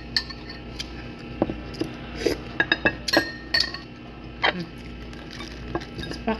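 Metal spoon clinking and tapping against a plate and dish in short, irregular strikes, clustered thickest around the middle.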